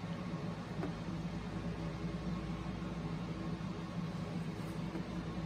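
Steady low hum with a faint hiss throughout: background room noise, with no distinct event.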